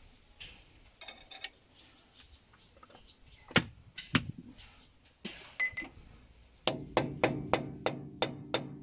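Metal parts clinking a few times as they are fitted into a backhoe loader's planetary axle hub, then about two-thirds of the way in a fast, even run of hammer blows on steel, about three to four a second, each ringing.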